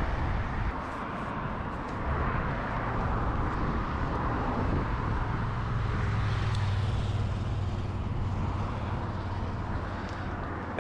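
Steady rolling noise of a bicycle ride along a towpath, with a low hum that grows louder for a couple of seconds past the middle.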